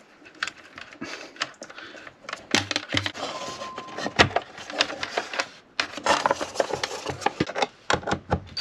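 Irregular clicks, taps and knocks of hands and tools working on wiring inside a wooden overhead cupboard.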